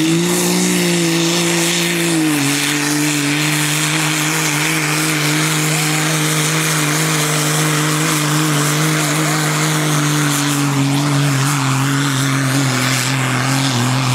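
Diesel pickup truck engine under full load pulling a weight sled, a steady drone. It climbs in pitch as the pull starts, dips slightly about two seconds in, then holds and slowly sinks in pitch as the engine works hard.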